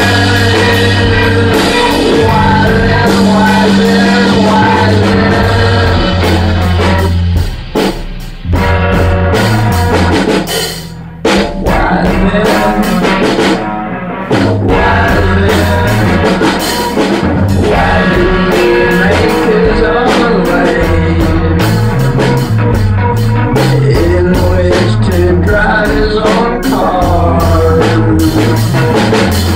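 Rock band improvising live in a rehearsal room: drum kit, guitar and singing, with the vocal played back through a Leslie rotating speaker cabinet. The drums are a bit blown out by the in-room vocals. The music thins out briefly a few times around the middle.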